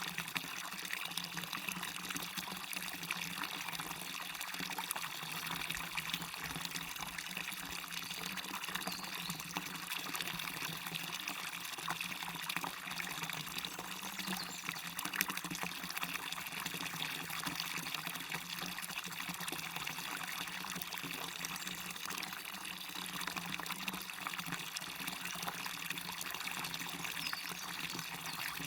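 Small waterfall running steadily into a stream: a continuous even rush of falling and splashing water, dense with fine splashes.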